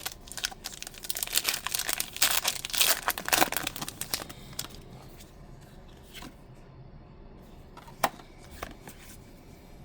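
Foil Pokémon card booster pack wrapper crinkling and tearing open, busy for the first four and a half seconds, then quieter handling with a single sharp tap about eight seconds in.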